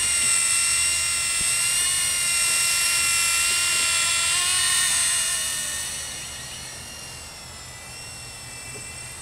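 Blade MSR micro electric RC helicopter in flight: a steady high whine from its small electric motors and spinning rotor, wavering slightly in pitch. It fades after about five seconds as the helicopter flies away.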